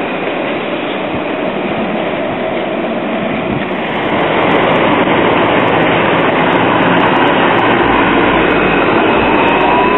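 Alstom Citadis light-rail tram running close by on street track, a steady noise of wheels on rail that grows louder about four seconds in. Near the end a rising whine from its electric drive sets in.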